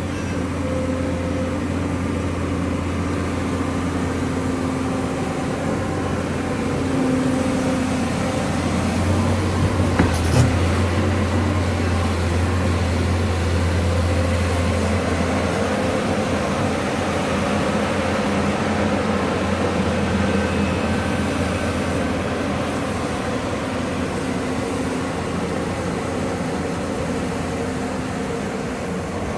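Hydraulic excavator's diesel engine running steadily under working load, rising slightly for several seconds mid-way, with one short knock about ten seconds in.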